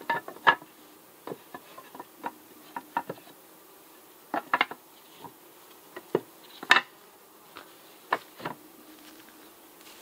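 Flat wooden boards clacking and knocking as they are laid and slid into place across the top of a horizontal Langstroth beehive, about a dozen sharp irregular knocks, loudest about half a second in and near seven seconds in. Honey bees hum faintly and steadily underneath.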